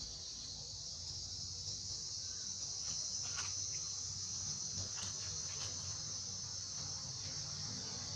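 Steady, shrill chorus of insects calling without a break, with a few faint short chirps about three and five seconds in.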